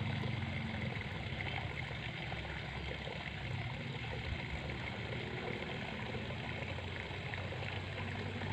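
Steady sound of running water, a continuous trickling rush.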